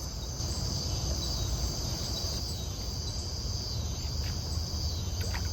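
Steady high-pitched insect chorus with a low rumble underneath, and a couple of faint clicks near the end.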